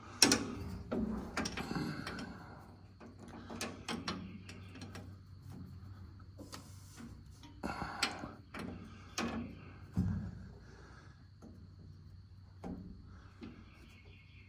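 Wrench on a rear differential fill plug: irregular metallic clicks, knocks and scrapes as the plug is broken loose and turned out. The loudest knock comes right at the start, with others about eight and ten seconds in.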